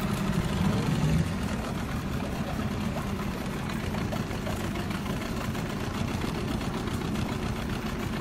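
Small boat outboard motor running steadily at low speed, a little louder for about the first second before settling.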